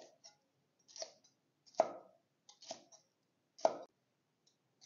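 Chinese kitchen cleaver slicing green and red peppers on a chopping board: about six separate knife strokes through the pepper and onto the board, roughly one a second.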